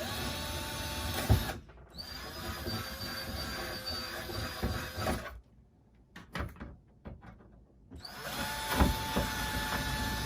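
Power drill boring small pilot holes for screws into the back of a hollow-core door, run in three bursts, each spinning up to a steady whine: a short one, a longer one of about three seconds, and a third starting near the end.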